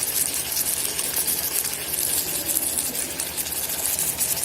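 Onion-tomato masala sizzling steadily in hot mustard oil in an electric kettle, an even frying hiss.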